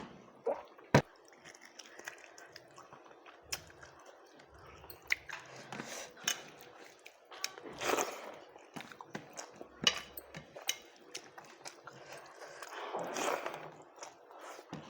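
A person eating rice: chewing and mouth smacks with scattered sharp clicks, the sharpest about a second in.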